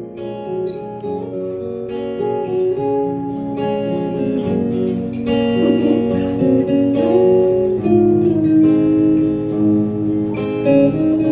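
Guitar music: a guitar playing a song's opening, with plucked and strummed notes ringing over one another.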